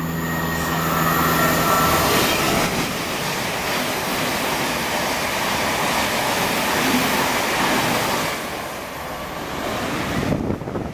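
Thameslink Class 700 electric multiple unit running through the station at speed. The wheel and rail noise builds within the first two seconds, stays loud for several seconds, then fades, with a brief rattle of clicks near the end.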